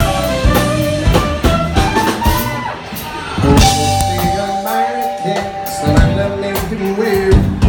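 Live rock band playing loudly: drum kit, electric guitars and a singer, with a long held note in the middle.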